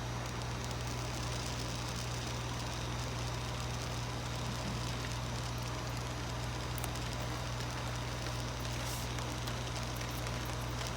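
Continuous inkjet printer running with its ink system on: a steady low hum with an even hiss over it.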